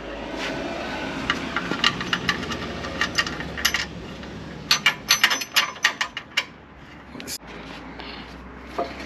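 A bolt being run in with a tool to fix a tow strap bracket to a car's chassis rail: a low steady whir with quick metallic clicks, coming in rapid clusters about five seconds in and stopping around seven seconds.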